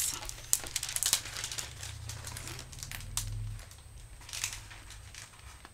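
Clear plastic film on a diamond-painting canvas crinkling and crackling as the canvas is handled, with scattered crackles that thin out toward the end and a low handling rumble from about one to three and a half seconds in.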